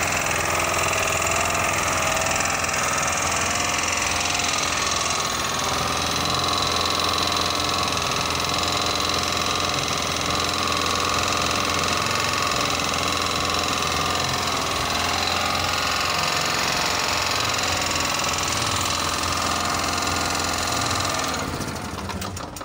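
Elepaq EC3800CX portable generator's single-cylinder four-stroke gasoline engine running steadily at its governed speed. The speed is back up to normal now that a worn governor spring, which had left the engine running slow with low output, has been replaced.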